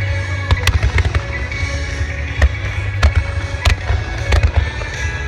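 Fireworks bursting in a string of sharp bangs over a continuous low rumble, with music playing alongside.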